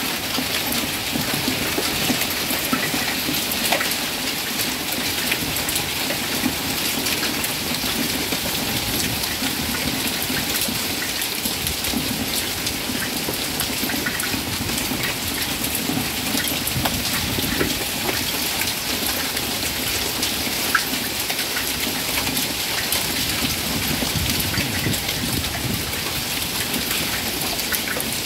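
Hailstorm: a steady dense hiss of hail and rain pelting the ground and plants, peppered with many small sharp ticks of individual hailstones striking.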